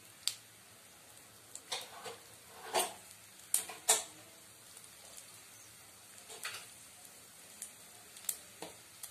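Mustard and cumin seeds spluttering in hot oil during tempering: irregular sharp pops, about nine in all and loudest a little under four seconds in, over a faint sizzle.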